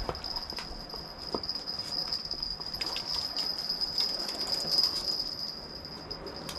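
Scattered light clicks and knocks of fishing tackle as a hooked sea bass is reeled in and lifted out at the rod stand, over a steady high-pitched whine that runs throughout.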